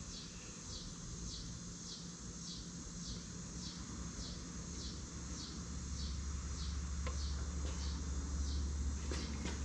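A high, short chirp repeating steadily about twice a second, each chirp falling in pitch. A low steady hum joins about six seconds in.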